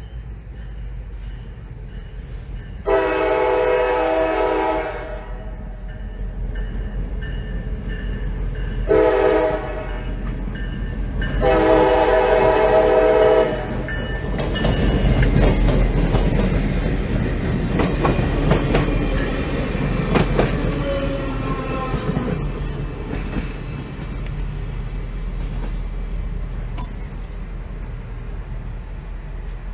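CSX diesel locomotive's air horn sounding a long blast, a short blast and another long blast for a grade crossing, then the locomotive and its cars passing close, engine rumble with wheels clattering over the rails, fading as the train moves away.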